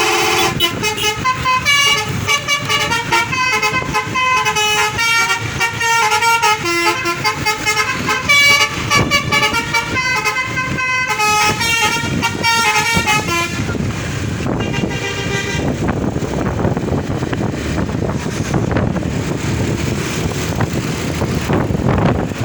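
Indonesian 'telolet' bus horn, a multi-note musical horn, playing a quick tune of changing notes for about 13 seconds, then stopping and giving way to steady vehicle noise.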